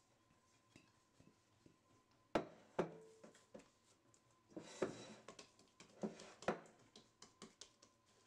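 A bowl set down on a kitchen countertop, giving two sharp knocks a couple of seconds in. Then hands handle a ball of bread dough and press it into the bowl, with soft taps, clicks and brushing sounds.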